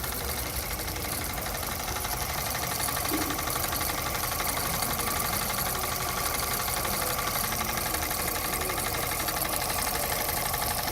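Jensen model steam engine running steadily under steam, with a rapid, even beat.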